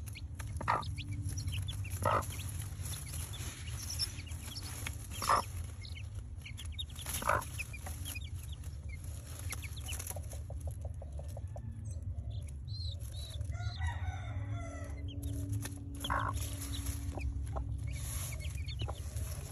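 Chickens clucking in short, separate calls, with a rooster crowing for about three seconds around the middle. A steady low rumble runs underneath.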